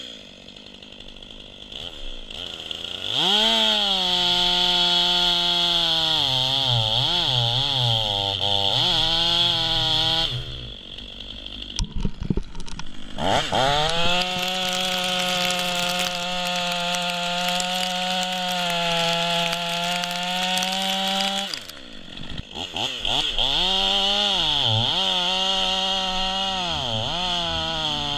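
Stihl MS 500i fuel-injected two-stroke chainsaw cutting through an oak log, revved to full throttle three times and dropping back in between. The engine pitch wavers and sags as the chain bites into the wood in the first and last cuts, and holds steadier at full speed through the middle one.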